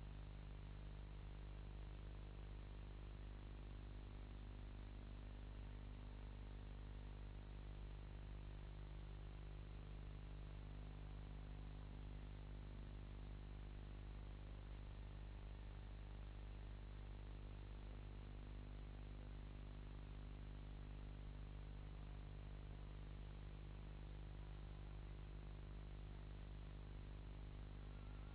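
Steady electrical hum and hiss with faint high whistle tones, unchanging throughout: the background noise of a silent film transfer, with no sound from the scene itself.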